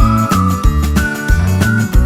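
Upbeat background music with a steady beat, bass and a high whistled melody.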